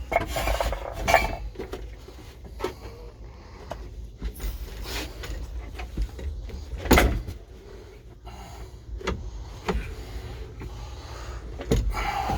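Scattered knocks and clunks of metal parts being handled on a John Deere 710D backhoe, about every second or two, over a low steady hum.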